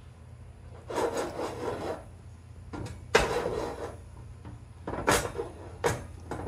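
Oval aluminum pot shaken back and forth on a gas stove's metal grate, scraping in separate strokes about a second in, around three seconds with a sharp knock, and again near five and six seconds.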